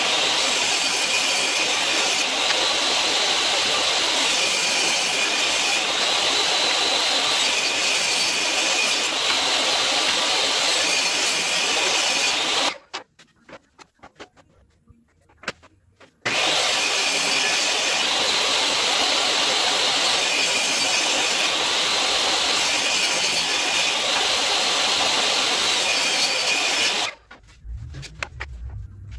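Table saw running and cutting poplar boards: two long passes with a steady whine over the noise of the cut, and a short quiet gap between them. Near the end the loud sound stops abruptly, leaving a low rumble.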